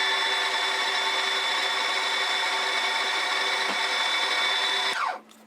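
Milling machine spindle motor running with a steady whine while drilling the tapping-size hole for a 10BA thread, then spinning down and stopping about five seconds in.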